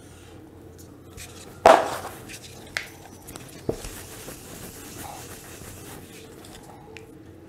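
A whiteboard duster rubbing across a whiteboard, wiping off marker. A sharp knock comes just under two seconds in and two lighter clicks follow, before the rubbing.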